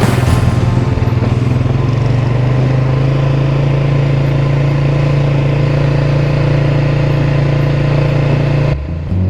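Polaris Sportsman 570 ATV engine running at a steady speed with a steady low drone, cutting off suddenly near the end.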